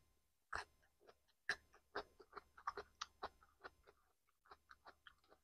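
Chewing a crisp piece of raw green vegetable: a quick, irregular string of short crunches and clicks, several a second.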